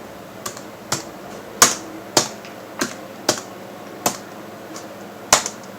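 Keys pressed one at a time on a Lenovo ThinkPad W510 laptop keyboard, about nine separate clicks at an uneven pace of roughly two a second, while the system date and time are being set. The two loudest clicks come about a second and a half in and near the end.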